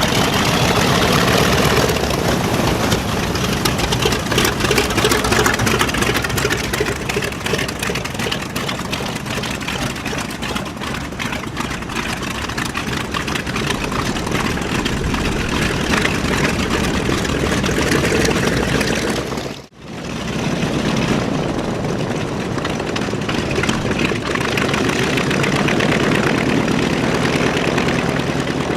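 The B-25J Mitchell's twin Wright R-2600 radial engines running steadily. The sound drops out suddenly about two-thirds of the way through and comes straight back.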